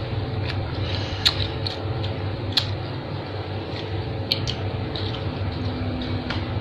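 A steady low mechanical hum, with a few sharp clicks and taps over it.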